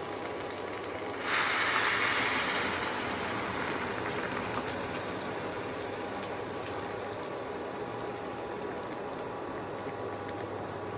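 Hot water poured from a kettle into a hot pan of fried rice and spices. It hisses loudly as it first hits the pan about a second in, then settles to a steady pouring and sizzling.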